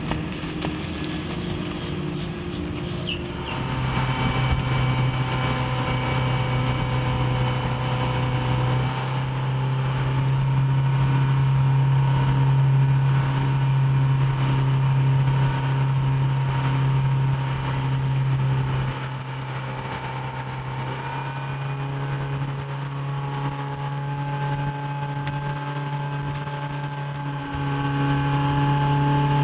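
A boat's Volvo Penta 5.7 GL V8 sterndrive engine running under way at a steady note. Its level climbs a few seconds in, dips for a stretch past the middle, and rises again near the end.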